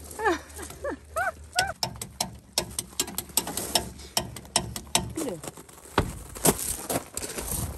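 A run of short sharp clicks and knocks, several a second, from a jack being worked under a pickup truck to lift a flat tyre, with footsteps crunching on gravel near the end.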